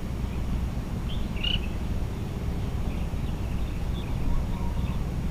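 Steady low rumble of wind on the microphone, with a few short bird chirps, the clearest about a second and a half in.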